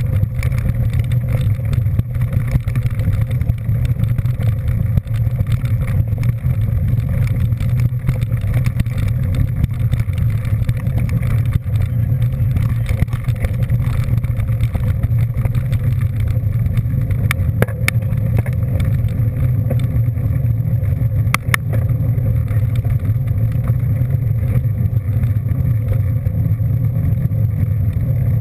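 Steady drone of a moving vehicle: continuous low engine and road rumble with no change in pace, and a few short clicks in the second half.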